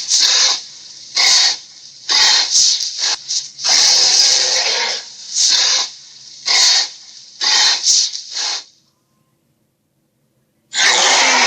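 Creature sound effect: a string of short, hissing, raspy bursts, about seven in quick succession with the longest one about four seconds in. After a brief silence, another hiss starts near the end.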